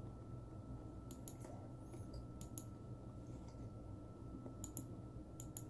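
Faint, sharp clicks, mostly in quick pairs, four times over a low steady room hum.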